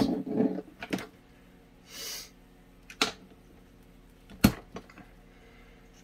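Sharp plastic clicks and knocks from working the speed-switch knob off a small plastic box fan. A brief scraping rustle comes about two seconds in, and the loudest click about four and a half seconds in. A faint steady hum runs underneath.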